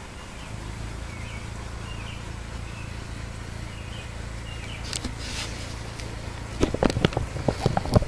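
Steady low outdoor hum with faint bird chirps, then near the end a quick run of knocks and clicks as a handheld camera is handled and moved.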